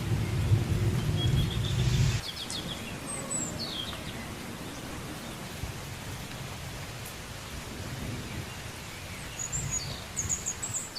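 Thunder rumbling over rain, cutting off abruptly about two seconds in; then a steady hiss with scattered short, high bird chirps.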